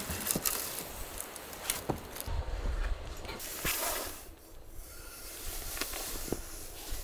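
Knocks and footsteps as a pine log is set down on a wooden pallet and handled, followed by a chalk line being pulled off its reel along the log.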